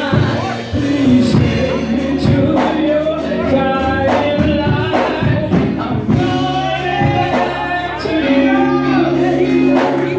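Gospel song played loud over a sound system with a steady beat, a woman singing lead into a microphone over it.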